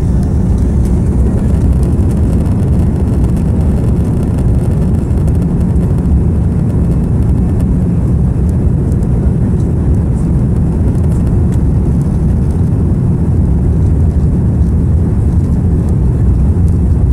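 Cabin noise of an Airbus A340-300 taxiing: a steady low rumble from its four CFM56 engines at low taxi thrust, heard from inside the cabin.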